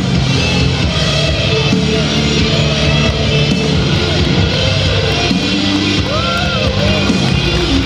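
Wrestler's rock entrance theme with electric guitar, playing loudly and steadily.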